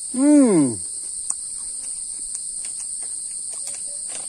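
Steady, high-pitched chorus of forest insects. A man's short voiced sound, rising then falling in pitch, comes just at the start.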